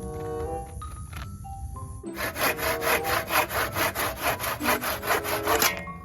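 Handsaw sawing through wood in quick back-and-forth strokes, about four a second, starting about two seconds in and stopping shortly before the end, over light background music.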